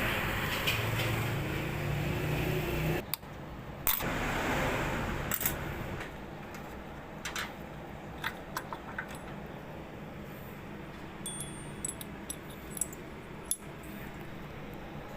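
A steady rushing noise that cuts off abruptly about three seconds in, then scattered light metallic clicks and clinks of small metal parts being handled.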